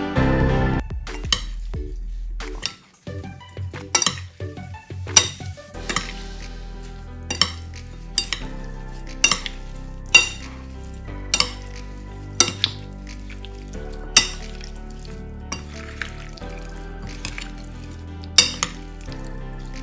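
Two metal spoons tossing a wet salad of sliced beef tongue and vegetables in a bowl: squishy stirring with sharp clinks against the bowl about once a second, over soft background music. Salt is tipped in at the very start.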